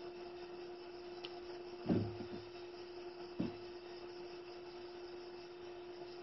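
Two short knocks, about two seconds and three and a half seconds in, as a Samsung Galaxy Grand smartphone is handled during reassembly, over a steady electrical hum.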